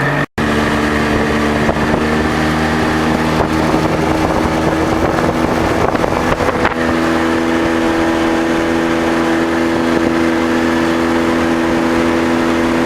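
A boat's outboard motor running steadily at speed as the boat moves fast across the water, with wind and water noise. The sound cuts out for an instant just after the start, and the engine note shifts slightly about seven seconds in.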